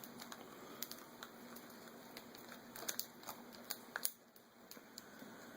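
Faint clicks, ticks and crinkling of fingers working the taped video-cable plug loose from the back of a laptop LCD panel, with small scattered ticks throughout.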